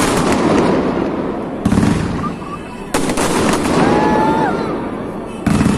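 Aerial fireworks display: shells bursting with loud bangs about every one to two seconds, each followed by a dense crackling that fades out, with a few brief whistles in between.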